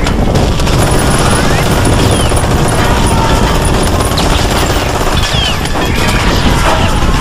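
Mountain bike racing down a rough dirt trail, heard from a camera riding on the bike or rider: a constant loud rush of wind on the microphone, mixed with tyre noise and the bike clattering and rattling over bumps.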